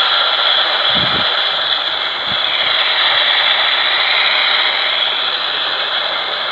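Steady radio static hiss from a receiver, with two faint low thumps about a second and two seconds in.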